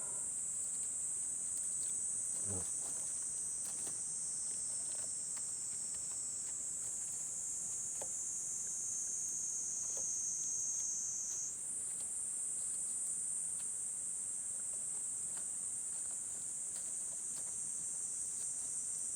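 Steady high-pitched chorus of insects singing in the forest, shifting slightly higher in pitch about halfway through, with a few faint ticks.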